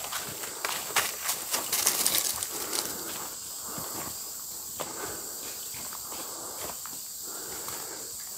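Footsteps crunching irregularly through a thick layer of dry fallen bamboo leaves, densest and loudest in the first three seconds, then sparser.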